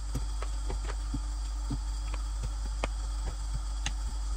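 Scattered light clicks and taps of chicken wings being laid out in an air fryer basket, over a steady low hum.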